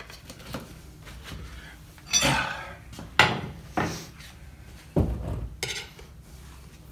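Metal tire spoons clanking and scraping against a motorcycle wheel rim while levering a tire bead over it, a handful of separate knocks with a heavier thump about five seconds in.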